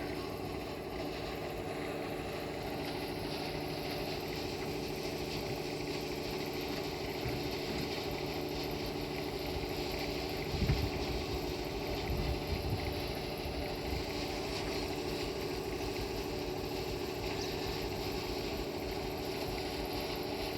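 A steady mechanical hum of a running machine or engine, unchanging in pitch, with a few brief low knocks about halfway through.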